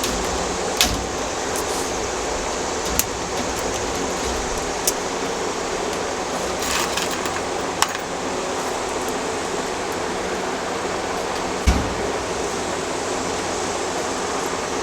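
Steady rushing noise with a handful of sharp clicks a few seconds apart and one heavier knock near the end, from hardware-mesh wire being handled and fastened onto a wire rabbit cage door.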